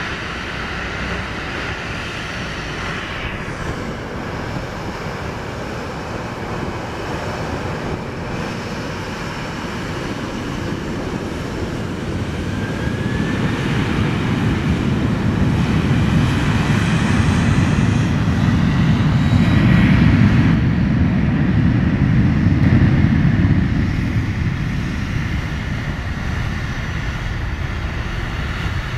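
Boeing 737 airliners' jet engines running, a steady jet whine over a low rumble. A short rising whine comes a little before halfway, then the rumble swells, loudest from just past halfway until about five seconds before the end, and eases as a 737 moves past along the runway.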